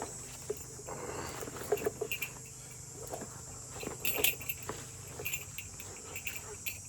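Light clicks and rustles of tools being handled in a carpenter's tool belt, over a steady high drone of insects with short chirps.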